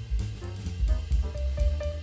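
Background music with drums, a heavy bass line and held melody notes.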